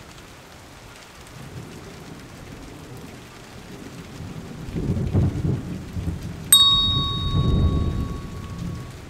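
Rain with a long rumble of thunder that swells over several seconds. About two-thirds of the way through, a bright electronic chime rings out suddenly and holds for about two seconds; it matches the subscribe-bell animation on screen.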